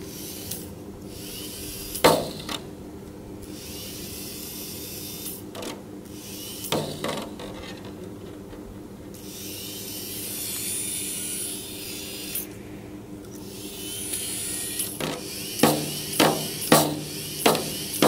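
A small weight on a string knocking on a tambourine's head, with the jingles rattling: a few single knocks early on, then a run of regular knocks about two a second near the end. Under the knocks runs a steady low hum.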